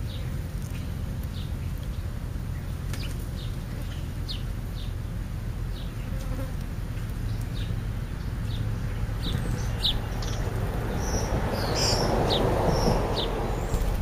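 An insect buzzing close to the microphone, a little louder a few seconds before the end. Short high bird chirps come in at scattered moments and grow more frequent towards the end.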